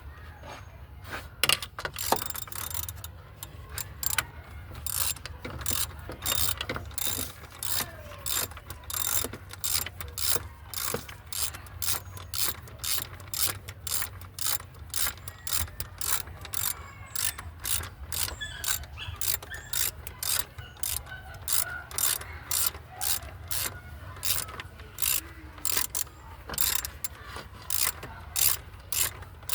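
Socket ratchet wrench being worked in steady strokes, its pawl clicking about twice a second, over a steady low hum.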